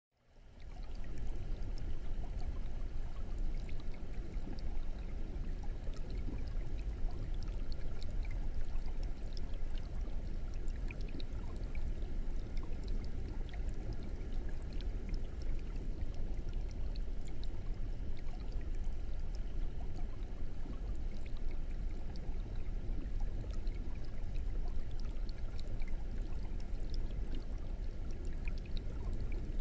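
Aquarium air bubbler: a steady stream of air bubbles rising and breaking at the water surface, a continuous trickling with many small pops over a low rumble. It fades in over the first second.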